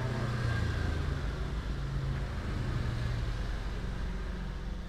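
A motor vehicle engine running, a steady low hum that grows louder in the first second and then slowly eases off.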